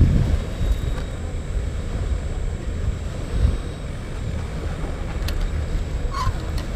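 Wind buffeting the microphone outdoors: an uneven low rumble that swells and fades in gusts.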